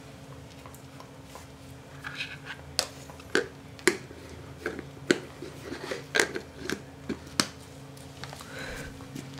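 A dachshund crunching dry kibble: a string of sharp, irregular crunches starting about two seconds in and stopping a little before the end.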